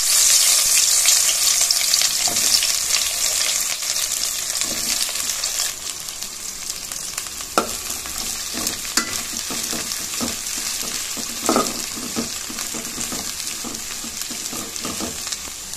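Sliced bitter gourd frying in hot sesame oil, a loud sizzle that slowly dies down as the slices settle. A perforated metal ladle stirs them, with a few scrapes and knocks against the metal pot in the second half.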